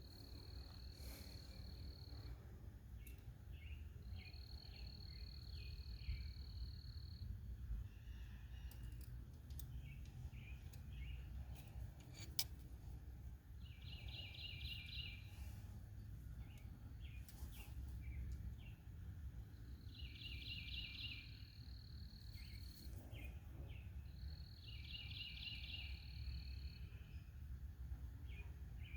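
Outdoor ambience: repeated high chirps and trills, steady notes about two seconds long alternating with fast pulsed trills, over a low steady rumble, with a couple of faint clicks.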